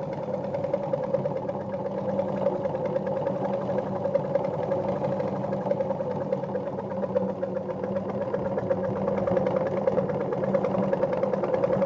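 Jones sewing machine, driven by its electric motor, running steadily at a fast even stitch rate as it sews a zigzag stitch.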